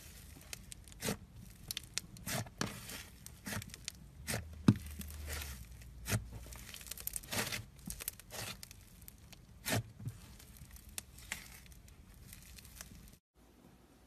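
Thick green slime being pressed and pulled apart by hand, making irregular crackling pops and tearing sounds as it stretches and air pockets burst. It stops suddenly near the end.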